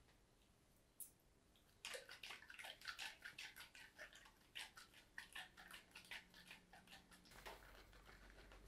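Faint sloshing of an aerosol can of whipped cream being shaken hard. It comes in quick, even strokes, about four or five a second, starting about two seconds in and stopping a little after seven seconds.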